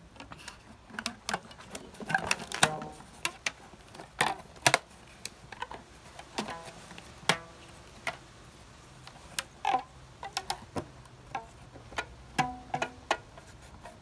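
Rubber-band strings on a homemade cardboard-box banjo being plucked and stretched: irregular short twangs mixed with sharp clicks and taps of fingers on the cardboard, with no steady tune. Near the end the plucks sound clearer pitched notes.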